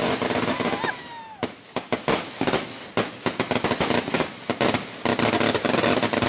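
A string of firecrackers going off in rapid, irregular bangs from about a second and a half in until about five seconds in.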